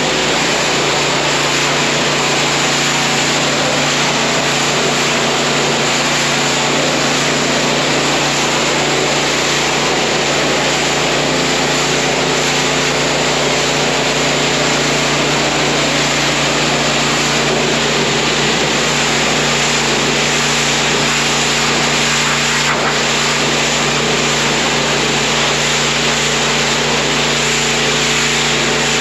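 Bilt Hard 3500 PSI gas pressure washer's 224cc engine running steadily, with the hiss of its high-pressure water spray washing down the milking parlor.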